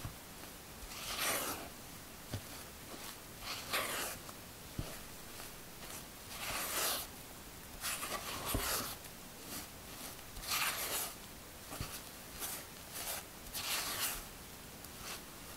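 A spatula folds almond flour and powdered sugar into meringue in a glass bowl, the macaronage stage of making macarons. Each stroke makes a short scraping swish, about six of them, roughly every two seconds, with a few soft knocks of the spatula against the bowl in between.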